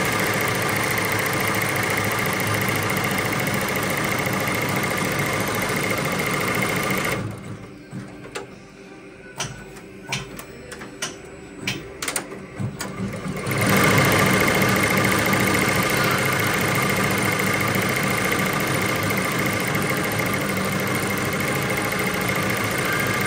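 ZSK multi-needle embroidery machine stitching steadily, then stopping about seven seconds in for a thread colour change. During the change there are about six seconds of separate clicks and clacks, and then the machine starts stitching again with the new colour.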